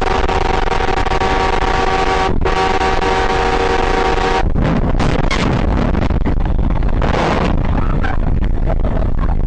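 A vehicle horn held down as one steady multi-note chord, with a brief gap about two seconds in, cutting off about four and a half seconds in: a warning blast at an oncoming car heading straight at the vehicle. After that come engine and road rumble, a few knocks and a short hiss.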